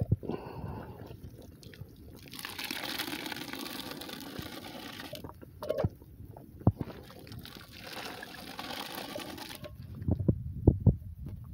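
Whole corn and water at a rolling boil in a steel drum, a steady boiling hiss that comes and goes in two long stretches. A few sharp knocks break in, one partway through and a louder cluster near the end.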